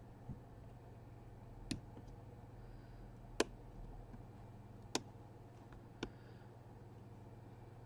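A handful of short, sharp clicks, about five spread over several seconds with the one in the middle the loudest, over a steady low hum.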